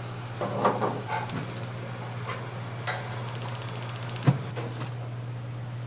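Steady low machine hum with scattered clinks and knocks of food-preparation work, a burst of rapid, even ticking in the middle, and one sharp knock a little past four seconds in.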